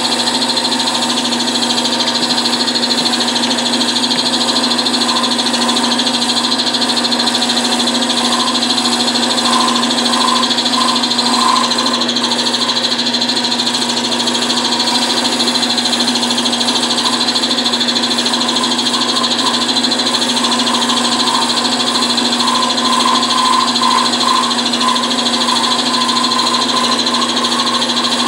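Wood lathe running steadily, spinning a spalted pecan bottle-stopper blank while a chisel cuts beads into it: a steady hum under a loud hiss, with a wavering higher tone coming and going in the middle and again near the end.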